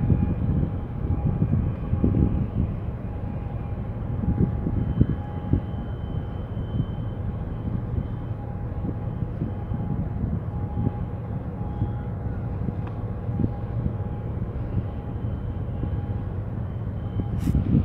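Steady low rumble across the container port, with wind buffeting the microphone in gusts and a faint steady whine. A couple of sharp clicks come near the end.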